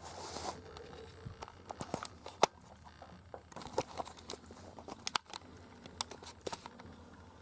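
Handling noise: rustling and a string of sharp clicks and knocks, the loudest about two and a half seconds in, as gear and clothing are moved about in the hunting blind.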